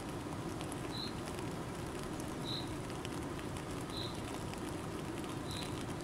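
Steady rush of flowing river water, with faint scattered ticks of water. A bird's short high call repeats about every second and a half.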